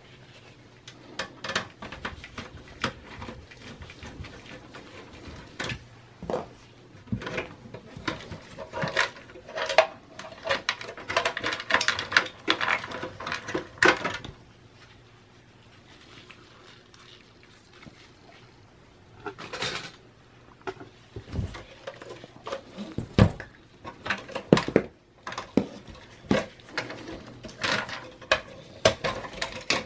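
Scattered clicks, taps and clatter of sheet-metal and plastic parts and a screwdriver being handled while a Dell OptiPlex 9010 small form factor desktop is taken apart, with a quieter stretch in the middle.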